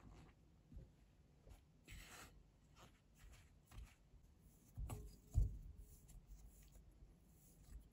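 Spatula scraping and stirring flour into crumbly cookie dough in a glass bowl, a run of faint scratchy strokes. About five seconds in come a couple of dull thumps as the dough is pressed together into a ball by hand.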